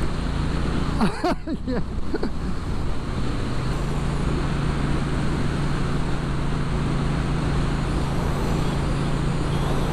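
Motorcycle engine running with a steady low hum at highway cruising speed, with wind and road noise over it.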